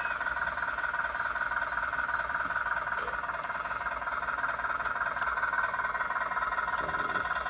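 Simulated diesel engine idle from the RC Cat 950M wheel loader's sound kit, played through a small, cheap speaker: a steady, thin, buzzy hum that does not change.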